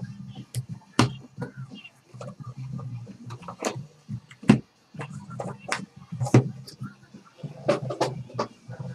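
Cardboard trading-card box being opened by hand on a table: a series of knocks, taps and scrapes as the lid comes off and the inner sheet is lifted out. The loudest knock comes about four and a half seconds in.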